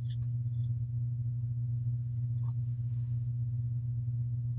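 Steady low electrical hum, with two faint light clicks about two seconds apart as small nuts are worked onto the flight controller's mounting screws.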